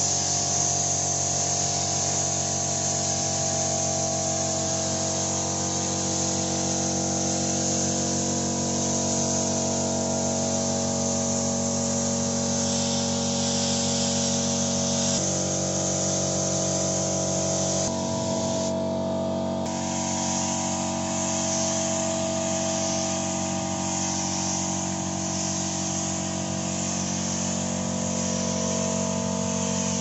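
Gravity-feed air spray gun hissing steadily as it sprays paint onto sheet metal, over a steady machine hum. The hum changes pitch suddenly a couple of times past the middle.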